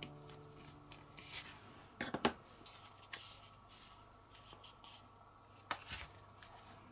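Paper rustling and crinkling as a handmade paper pocket file is handled and its pockets are opened, with a couple of sharper crackles about two seconds in and another near the end. The last notes of soft background music fade out at the start.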